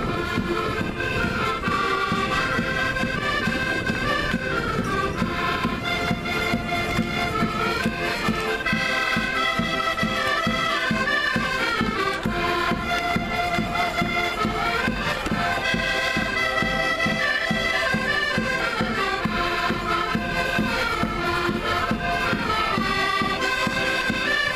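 A Portuguese folk band playing a lively traditional tune in the street, with a reedy melody over a steady drum beat.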